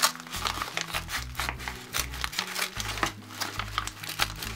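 A mail package being torn open and handled: a quick run of crinkling, rustling and ripping noises, over soft background music.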